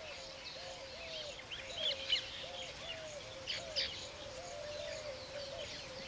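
Weaver birds chirping in short, scattered notes, with a low call repeating about twice a second underneath.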